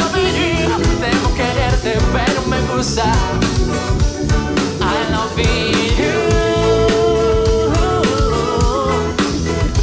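Live pop band playing a song: drum kit, guitars and keyboard, with singing voices over them.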